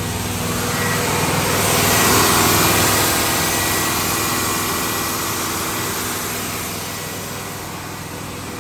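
GMC Yukon V8 engine at a high, rough idle, swelling louder about two seconds in and then easing slowly down. The owner suspects a major vacuum leak that he cannot find.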